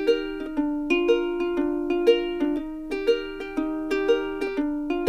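Background music: a light plucked-string instrumental tune with a steady pulse of notes, about two a second.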